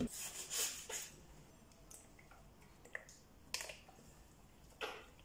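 Quiet kitchen handling sounds: a knock at the start as a cardboard carton of tomato purée is set down on a wooden worktop, scratchy scraping in the first second, then a few sharp clicks and taps as a knife cuts the carton open and the purée is poured into a plastic bowl.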